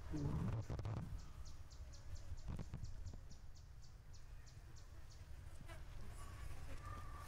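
An insect chirping in a steady rhythm, about three short high pulses a second, over low background noise, with a louder low sound in the first second.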